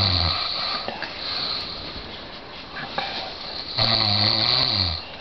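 A sleeping person snoring: one loud, low snore at the start and a second, longer one about four seconds in that falls in pitch at its end, with softer breathing between.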